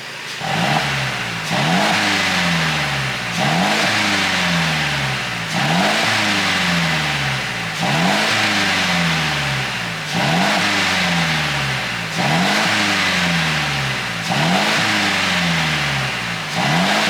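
Mercedes SLC250's turbocharged four-cylinder engine, tuned for exhaust pops, being revved about eight times at a steady rhythm of roughly one rev every two seconds. Each rev climbs quickly, then the revs fall slowly with popping and crackling from the exhaust on the overrun.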